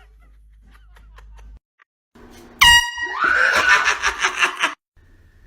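An air horn goes off suddenly about two and a half seconds in with a loud, blaring blast that lasts under half a second. About two seconds of loud, harsh noise with rapid pulses follow and then cut off abruptly.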